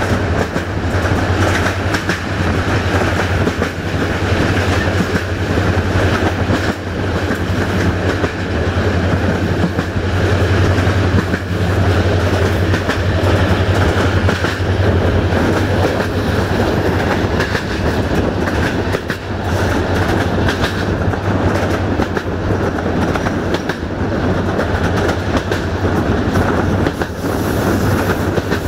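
Wheels of a moving passenger train rolling on the rails, heard from a carriage window: a steady rumble with the clickety-clack of wheels over rail joints.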